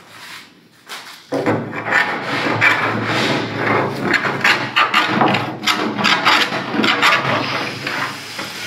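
Small hand plane shaving the edge of a plywood door in quick back-and-forth strokes, a dense run of scraping starting about a second in.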